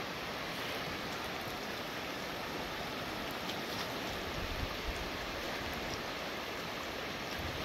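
Muddy river in full flood, its water rushing past in a steady, even noise. A couple of brief low bumps come about halfway through.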